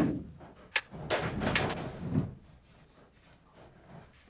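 Rectangular sheet-metal duct section being lifted and pushed into place overhead: a sharp click under a second in, then about a second and a half of metal scraping and rubbing.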